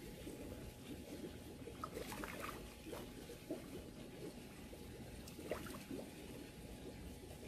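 Faint trickling and dribbling of water, with a few soft taps scattered through.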